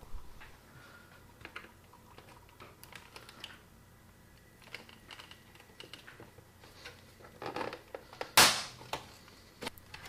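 Light plastic clicks and scrapes of a flat-tip screwdriver prying at the plastic top case of an iBook G3 clamshell laptop, with one loud sharp snap about eight and a half seconds in as that side of the case pops loose.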